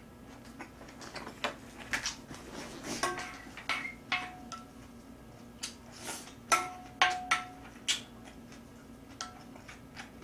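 A spoon and chopsticks clink and scrape against ceramic plates in a series of separate knocks. Several clinks ring briefly, and the loudest come in a cluster about six to seven seconds in.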